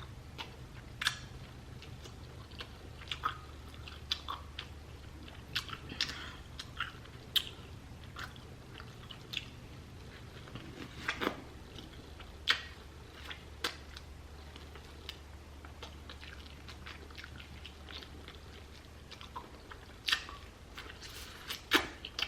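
A person eating seafood close to the microphone: irregular sharp clicks and crunches of biting and chewing, scattered a second or two apart, over a faint steady low hum.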